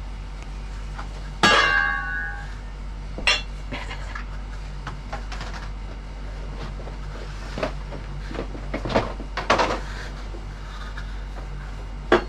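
Knocks, clinks and rattles of a Starlink dish kit being unpacked from its cardboard box. About a second and a half in there is one loud clink that rings briefly, a knock follows soon after, there is a cluster of rattling later, and a sharp click comes near the end.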